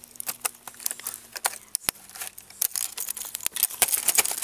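Laptop keyboard keys clicking and snapping as keycaps are pried off by hand. An irregular run of sharp plastic clicks and crackles, coming quicker near the end.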